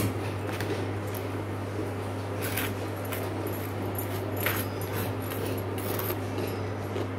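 A steel spoon scraping tomato sauce from a small steel bowl and spreading it on a slice of toast: a few soft scrapes and light clicks over a steady low hum.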